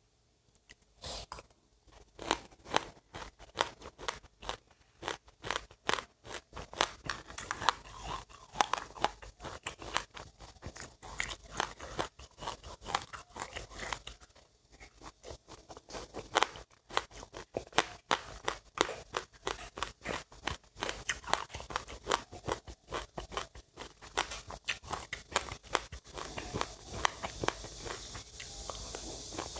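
Rapid, close-up crunching of seeds being chewed, a dense run of sharp clicks several to the second, pausing briefly twice midway. A steady hiss comes up near the end.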